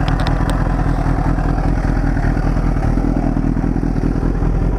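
Honda CBR1000RR's inline-four engine running steadily at low revs.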